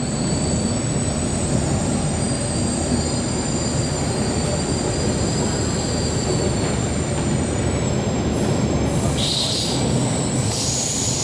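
An MTR K-stock train running, heard from inside the car: a steady low rumble with several high, steady squealing tones over it that fade out around seven to eight seconds in. Near the end come a few brief bursts of hiss.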